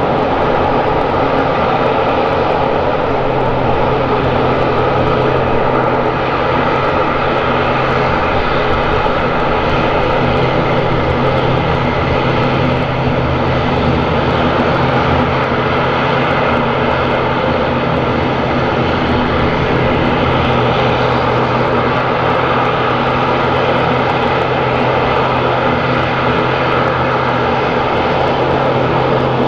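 Embraer KC-390's twin IAE V2500 turbofan engines running on approach, a steady, continuous engine noise with a low hum and higher tones held through it.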